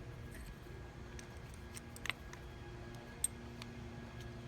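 A few light, sharp clicks of small metal hardware and hand tools being handled, with the clearest click about two seconds in and another just after three seconds, over a faint steady hum.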